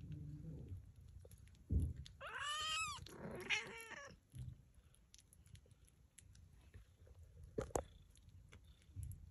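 A soft thump, then a cat's single meow that rises and falls in pitch, followed by a shorter, rougher cry. Light rustling and small clicks follow, with one sharp knock near the end.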